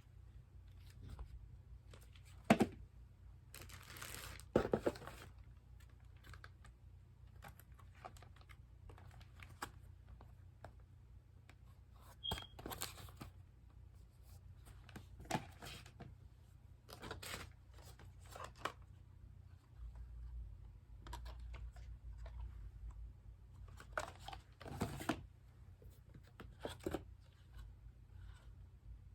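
Packaging and cosmetic products being handled and unwrapped: irregular rustling and tearing with scattered clicks and taps, the loudest about two and a half seconds and four to five seconds in.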